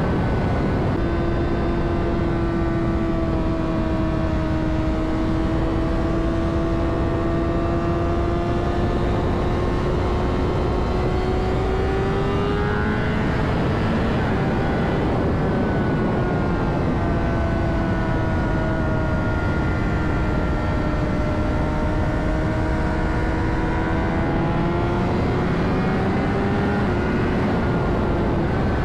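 2009 Honda CBR600RR's inline-four engine running at speed under heavy wind rush on the helmet-mounted microphone. The engine note sags and climbs slowly, and twice, about halfway through and near the end, it rises and then drops away sharply.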